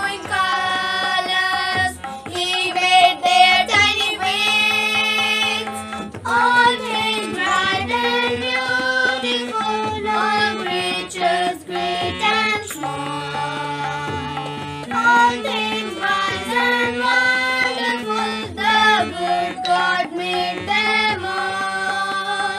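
Instrumental music: a harmonium playing a hymn melody in held notes, with drum beats.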